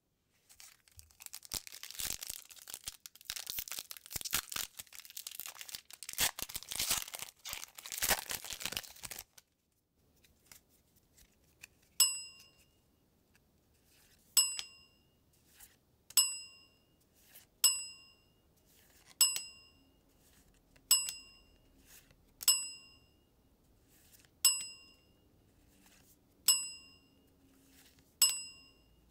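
A foil trading-card booster pack wrapper being torn open and crinkled for about nine seconds. Then comes a short bright chime, ten times, about one every two seconds, as each card is shown.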